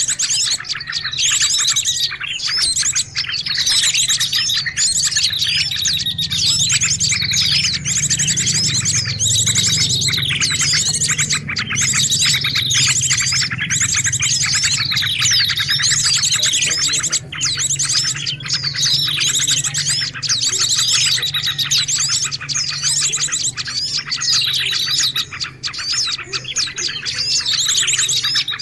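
A dense, continuous chorus of many small birds chirping and twittering over one another: a mixed-species bird-lure recording meant to draw small birds in. A faint steady low hum runs underneath.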